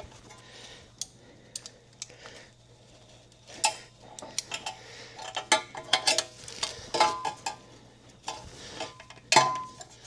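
Steel hand tools and suspension hardware clinking and rattling as they are handled, in scattered sharp knocks that grow busier after a few seconds, with a brief ring of struck metal near the end, over a faint steady hum.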